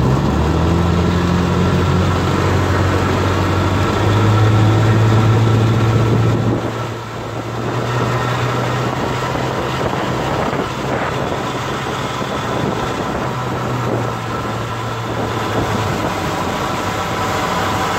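1959 Evinrude Fastwin 18 hp two-stroke twin outboard motor running under way in forward gear, rising in pitch as it is throttled up in the first second or so, then holding a steady run. Its level dips briefly about seven seconds in before settling again, with water rushing from the wake beneath the engine.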